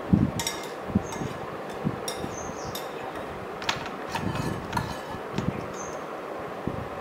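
Light clicks and taps with a few soft thumps over a steady background hum, as chopped nuts are sprinkled by hand over kheer in a glass bowl; the loudest thump comes right at the start.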